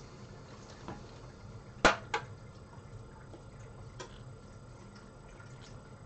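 Computer power-supply leads and their plastic Molex connector being handled: a few light clicks and knocks, the loudest two close together about two seconds in.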